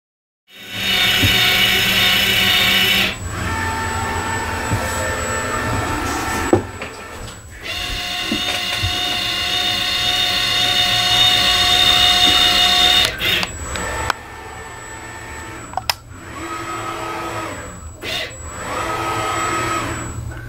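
FreeJet 330TX Plus direct-to-garment printer running its motors by itself. It makes whining tones that hold steady for several seconds at a time, stop and start again, with a few sharp clicks between moves. The later, quieter moves rise in pitch, hold and fall away.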